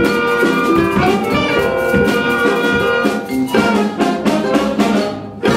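A jazz band of saxophone, trumpets, drum kit and strings playing the closing bars of the funk tune, held horn chords over drums, ending on a short final hit just before the end.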